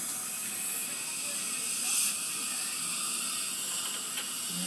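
Dental suction tip drawing air and saliva with a steady high hiss, briefly louder about two seconds in.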